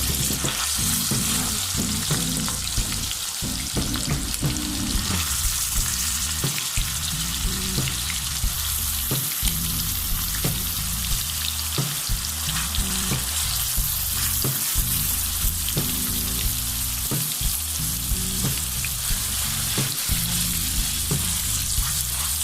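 Marinated boneless chicken pieces deep-frying in hot oil: a steady, loud sizzle with many scattered sharp clicks and pops.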